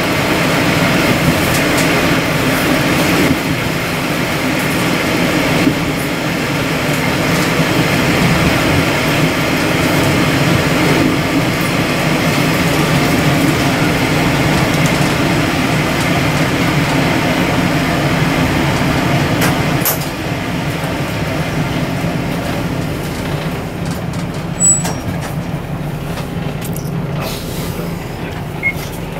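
Taiwan Railways DR2700 diesel multiple unit running along the track, heard from on board: a steady diesel engine drone with wheel and rail noise. About twenty seconds in the sound drops and becomes quieter, and a sharp click comes a few seconds later.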